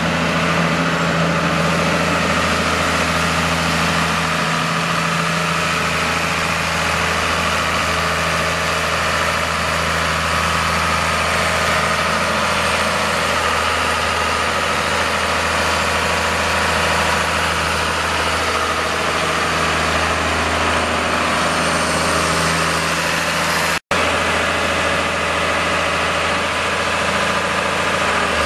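John Deere 4055 tractor's 7.6-litre turbocharged six-cylinder diesel engine idling steadily, without revving. The sound breaks off for a split second near the end.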